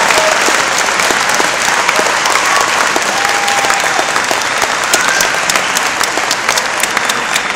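Audience applauding: a dense spread of many people's clapping.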